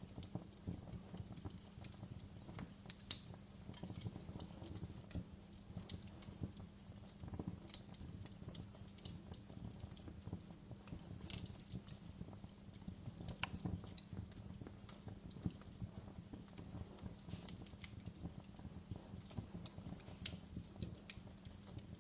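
Wood fire burning in a fireplace: irregular crackles and sharp pops over a steady low rumble of the flames.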